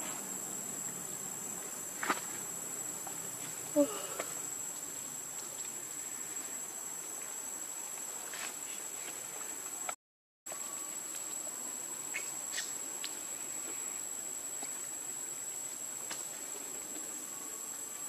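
Insects droning steadily on one high note, with a few faint clicks and a short, sharper sound about four seconds in. The sound drops out for a moment about ten seconds in.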